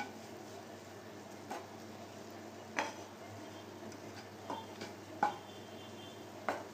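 Wooden spatula stirring fried onion and spice stuffing mixture around a nonstick frying pan: a handful of short, irregular scrapes and taps of the spatula against the pan.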